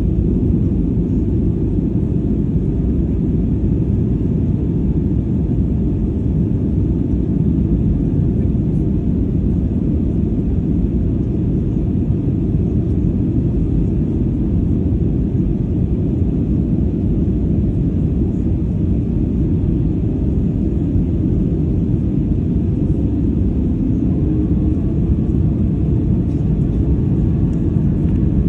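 Steady low rumble of jet engines and rushing air inside the cabin of an Airbus A320-family airliner on descent.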